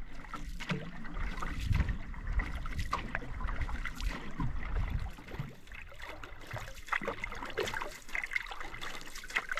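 Canoe paddle strokes in lake water: the blade dipping and pulling, with water trickling and splashing off the paddle and against the hull in an irregular rhythm.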